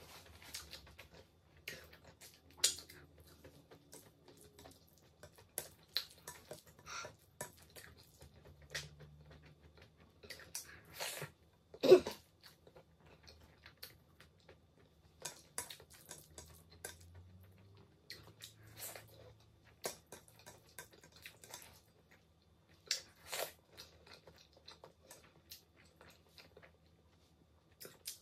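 Close-miked mouth sounds of a person chewing a mouthful of rice and pasta in tomato stew: scattered, irregular short clicks and smacks, with one louder knock near the middle.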